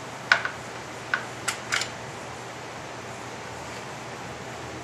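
About five sharp clicks and knocks in the first two seconds as the reassembled Marlin Model 795 .22 rifle is handled, over a steady background hum.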